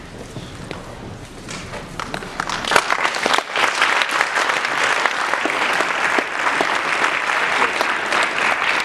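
Audience applauding: scattered claps start about a second and a half in and build into steady, full applause by about three seconds.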